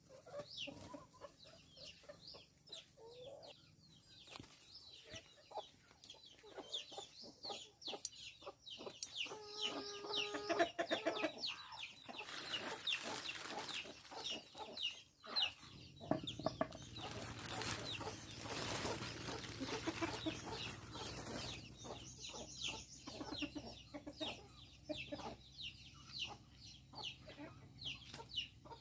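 Chickens clucking and calling, with one louder pitched call about ten seconds in. In the middle come two stretches of rustling as a plastic sack is handled.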